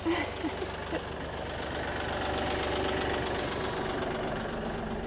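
Tractor engine running steadily at low revs, with a brief short vocal sound near the start.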